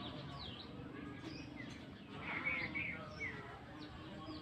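Birds chirping: many short calls and quick trills overlapping, busiest about two to three seconds in.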